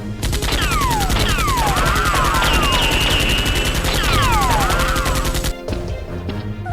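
A long burst of rapid automatic gunfire sound effect, lasting about five seconds and cutting off abruptly, with falling whistling whizzes layered over the shots.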